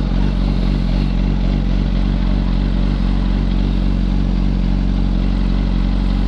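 2006 Yamaha R1's inline-four engine idling steadily.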